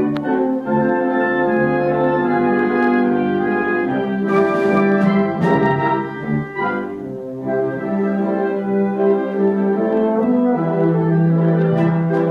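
A military band playing on stage, brass and wind instruments holding slow, sustained chords, with a few sharp accents about four and five seconds in.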